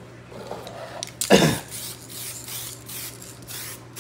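Aerosol spray can of clear coat spraying over a chrome-effect painted part. There is a loud first burst about a second and a half in, then short hissing bursts, about three a second.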